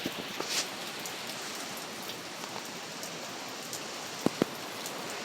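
Steady hiss of rain and wind, with two sharp ticks close together about four seconds in.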